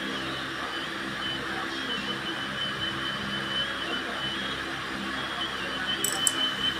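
Fried noodles cooking in a pan: a steady frying sizzle over a low hum, with a few sharp metal clicks, like a spatula against the pan, near the end.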